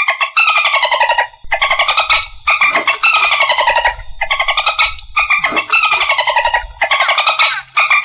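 Dolphin vocalising in a quick series of squeaky, buzzing pulsed calls, each under about a second and a half and sliding down in pitch, one after another with short gaps.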